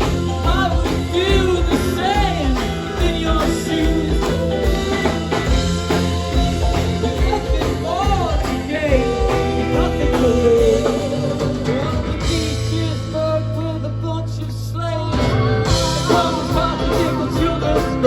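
Live rock band playing a passage between sung lines: drums and bass under a wavering lead melody line. The drums drop out for a few seconds past the middle, leaving a held low note, then come back in.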